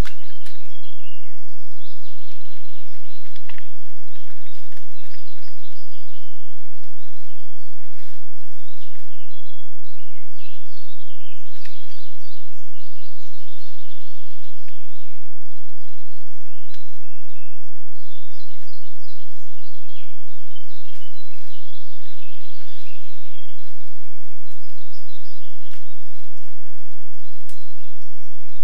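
Several songbirds singing in a dawn chorus: a steady stream of overlapping chirps and trills, with scattered sharp clicks and snaps and a faint steady low hum underneath.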